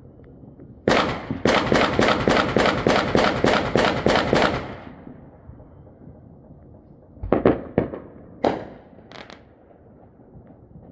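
Fireworks going off: one loud bang about a second in, then a rapid, evenly spaced string of about a dozen sharp bangs over some three seconds. A few scattered single bangs follow later.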